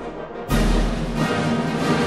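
Orchestral soundtrack music with a heavy, deep drum hit about half a second in.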